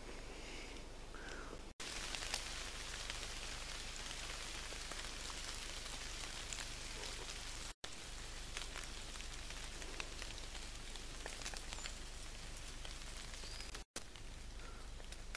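Steady hissing outdoor forest ambience, like wind through leaves, with a few faint high peeps. It drops out for an instant three times, at each cut between clips.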